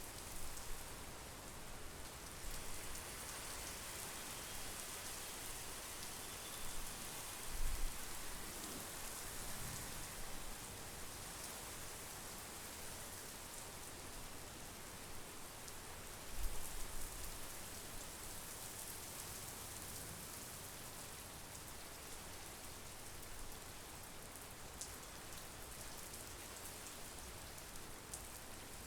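Steady monsoon rain falling, an even hiss of drops, with two brief low rumbles about eight and sixteen seconds in.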